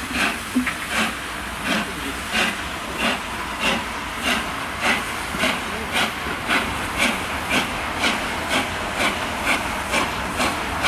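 LNER Peppercorn A1 Pacific 60163 Tornado's three-cylinder steam exhaust beating as it pulls a train away, the chuffs quickening from about one and a half to over two a second, over a steady hiss of steam.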